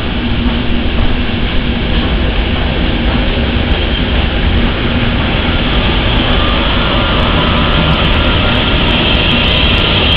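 An ETR 460 Pendolino electric tilting train running past close by along the platform: a steady, loud rush of wheels and running gear on the rails, growing slightly louder and brighter near the end.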